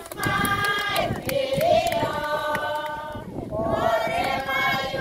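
A group of women and children singing together, holding long notes in phrases, with a short pause for breath about three seconds in.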